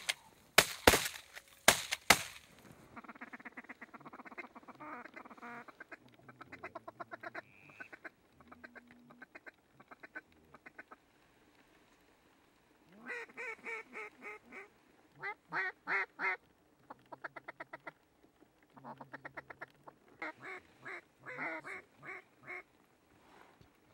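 A quick volley of about four shotgun blasts in the first two seconds. Then comes a run of duck calling: repeated series of quacks and fast chuckling notes, loudest about thirteen to sixteen seconds in and again near the end.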